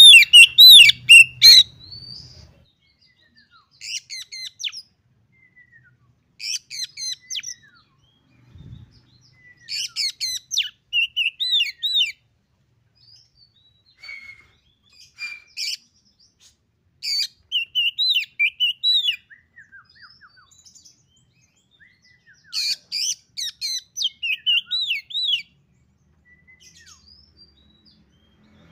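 Oriental magpie-robin singing in short bouts of rapid chattering notes and slurred whistles, separated by pauses of a second or two. The first bout is the loudest.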